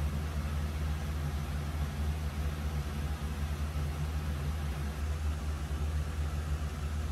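Steady low mechanical hum, unchanging, with a faint hiss above it.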